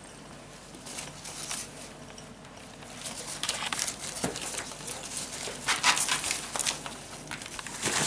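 Ferrets moving about on a fabric blanket among plastic ball-pit balls: rustling, with light clicks and knocks of the plastic balls. Sparse at first, busier from about three seconds in.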